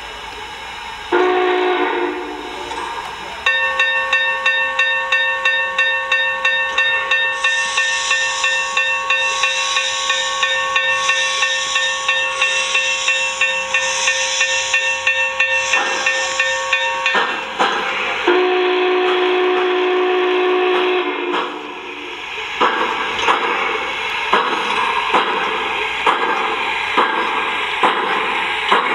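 Onboard Proto-Sound 3.0 sound system of an MTH O-scale Union Pacific Big Boy model steam locomotive playing its steam effects. A whistle blast sounds about a second in, then a bell rings about twice a second over a pulsing steam hiss. A second whistle blast comes midway, then steady exhaust chuffs about one and a half a second near the end.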